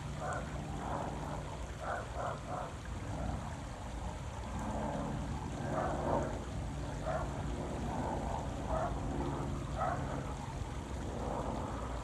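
Running water splashing and gurgling in an irregular patter, over a low steady hum.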